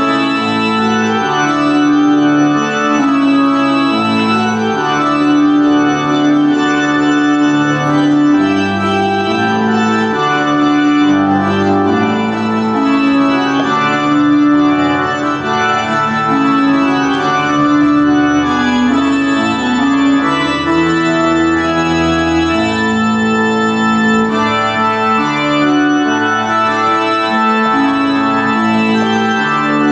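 Organ music: slow, sustained chords that move from one to the next about every second, each note held steady rather than fading.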